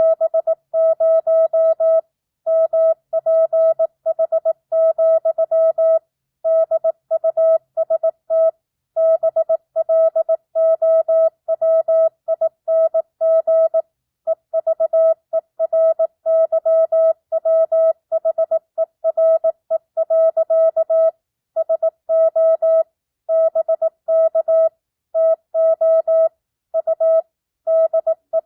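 Morse code (CW) sent as a single steady beep tone, a little under 700 Hz, keyed at 18 words per minute with standard non-Farnsworth spacing. Short and long beeps form letters and words, with slightly longer gaps between words. It spells out a simulated ham-radio QSO, a two-way CW exchange.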